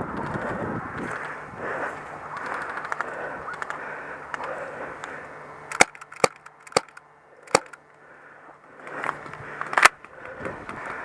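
Airsoft guns firing: about halfway through, four sharp snapping shots within two seconds, then a fifth, louder shot about two seconds later. Before the shots there is a steady rustling noise.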